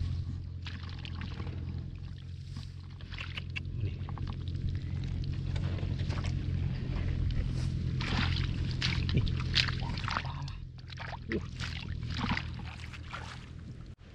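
Water splashing and sloshing in irregular bursts over the steady hum of a small engine.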